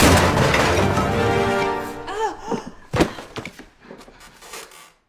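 Music playing over a staged fight, with a single sharp thud about three seconds in; the sound fades away near the end.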